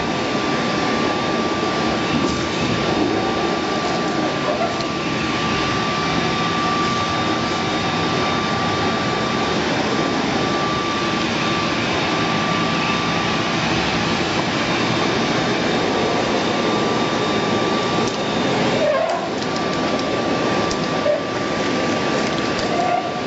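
RIDGID HD1400 14-gallon wet/dry shop vac running steadily: a loud rush of air with a steady high motor whine, dipping briefly near the end.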